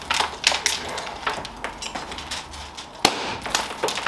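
A string of sharp cracks and pops at irregular intervals, with one louder crack about three seconds in.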